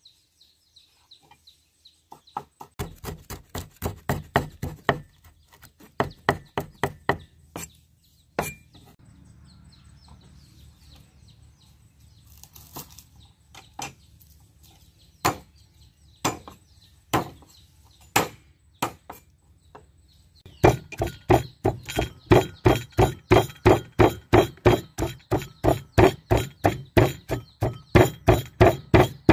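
A knife chopping rapidly on a wooden cutting board, with a run of quick, even strokes followed by scattered single cuts. About two-thirds of the way in, a pestle starts pounding sliced lemongrass and other herbs in a mortar in a steady, heavy rhythm of about three to four strokes a second.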